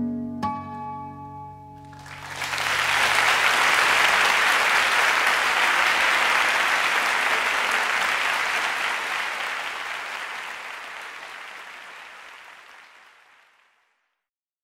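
The closing notes of an acoustic guitar piece, then, about two seconds in, an audience applauding, which slowly fades out near the end.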